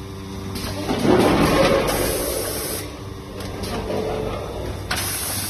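Automatic pre-made pouch filling and sealing machine running: a steady motor hum with repeated short hisses of compressed air about every three seconds, and a louder rush about a second in.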